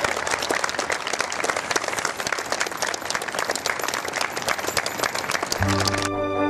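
Audience applauding, many hands clapping at once. Near the end the applause cuts off suddenly and music with low held notes comes in.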